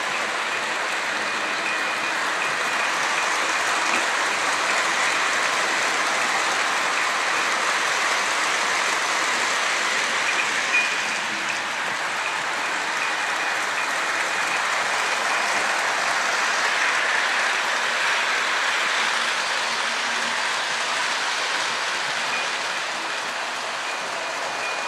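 Model diesel locomotives running on a tabletop layout: a steady whirring rush of motors and wheels on the track, with a faint high whine that comes and goes.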